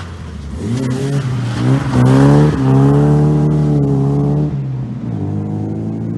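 Opel Manta 400 rally car's engine under hard acceleration, revving up to its loudest about two seconds in and holding high revs, then dropping back shortly after four and a half seconds and running on at lower revs.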